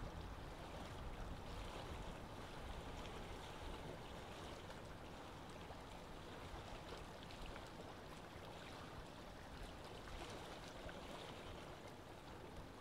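Faint, steady rushing noise with a low rumble underneath, slowly fading.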